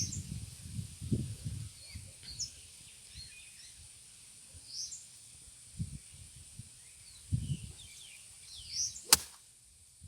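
Wind gusting on the microphone with birds chirping, then one sharp crack about nine seconds in as a golf club strikes the ball on a full shot, which is pushed slightly right.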